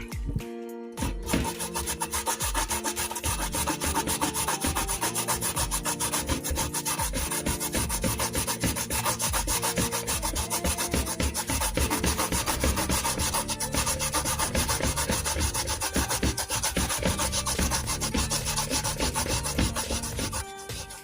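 Pumpkin being grated by hand on a metal grater: a steady run of rapid rasping strokes that stops just before the end.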